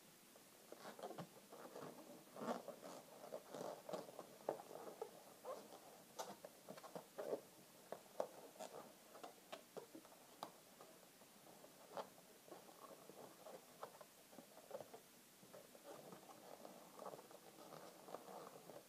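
Faint squeaking and rubbing of inflated latex twisting balloons being twisted and squeezed together by hand, with scattered sharp squeaks and ticks, busiest in the first half.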